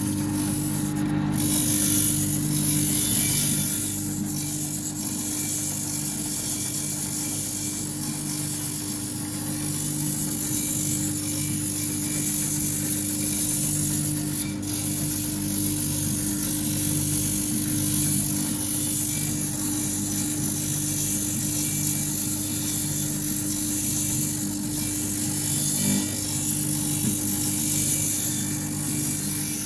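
Motor-driven sharpening machine running steadily with a constant hum, with a low pulsing that comes and goes every couple of seconds.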